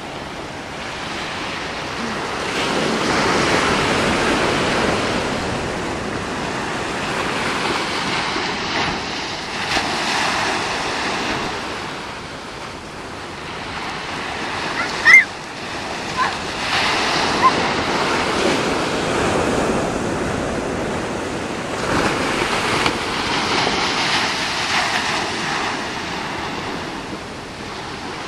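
Ocean surf: shorebreak waves breaking and washing up the beach, the rush swelling and fading several times. About halfway through, a brief sharp high-pitched sound cuts in as the loudest moment.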